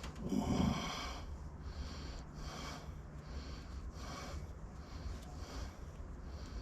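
A man breathing heavily, close to the microphone, while he works: soft noisy breaths about once a second over a low steady hum.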